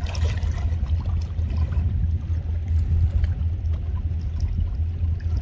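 Water splashing lightly and dripping as a square lift net is hauled up out of shallow seawater, over a steady low rumble.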